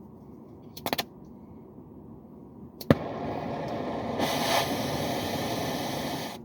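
A brazing/soldering torch being lit: a quick run of igniter clicks about a second in, then a sharp click near three seconds as the flame catches and a steady hiss of burning gas that cuts off suddenly near the end.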